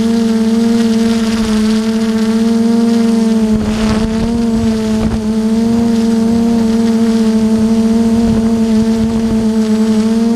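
Multirotor drone's motors and propellers running with a steady pitched hum, heard from the onboard camera. About four seconds in, a rush of wind noise hits the microphone and the hum dips briefly before settling again.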